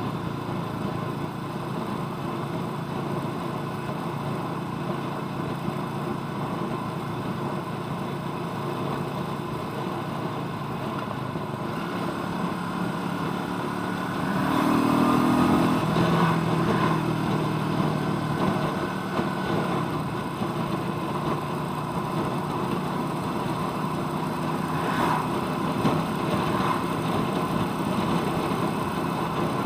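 Royal Enfield Meteor 350's single-cylinder engine running steadily under way, getting louder for a few seconds about halfway through.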